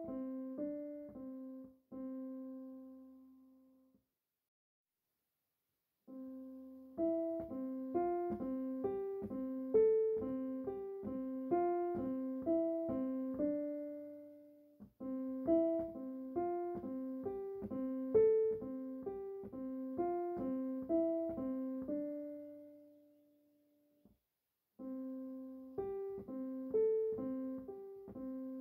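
Piano music played in short repeating phrases of evenly struck notes, stopping for a couple of seconds twice. No rain can be heard under it.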